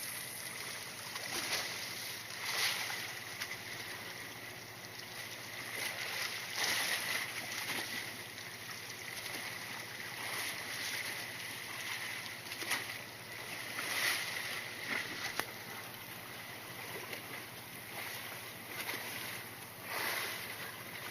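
Wind and sea noise on an open fishing boat, swelling and easing every second or two, with a faint steady high tone underneath.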